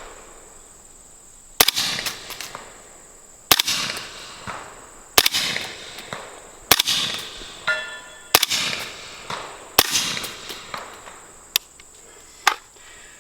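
Suppressed 300 Blackout rifle firing 190-grain subsonic rounds: about eight sharp, muted reports spaced one to two seconds apart, most trailing off in a short echo.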